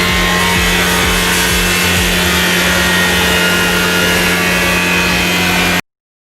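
A power tool or woodworking machine running steadily on wood, with a constant low hum, cutting off abruptly near the end.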